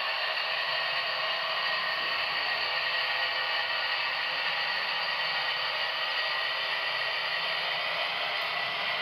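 Gauge 0 model train running during a Köf shunting locomotive's shunting move: a steady whirring, rushing noise of the small motor and the wheels rolling on the rails.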